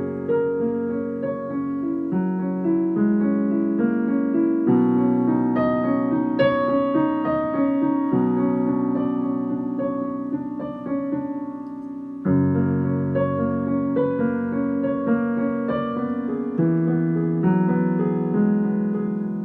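Background piano music: slow sustained notes and chords, changing every couple of seconds.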